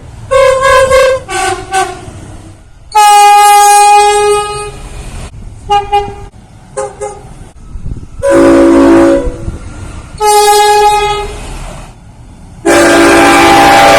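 A series of train air horn blasts from different horns: several quick short toots, then longer blasts, some sounding a chord of several notes at once. The last long blast drops in pitch near the end.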